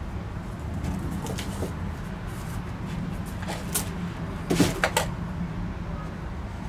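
Kittens scrambling in and around a cardboard box: a few short scrapes and knocks of paws and bodies on the cardboard, the loudest cluster a little past halfway. A steady low hum runs underneath.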